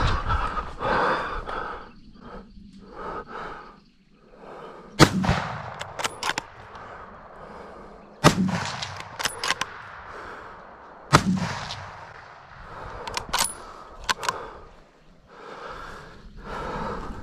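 Three rifle shots about three seconds apart, each followed a second or so later by two or three lighter clicks as the action is worked to chamber the next round.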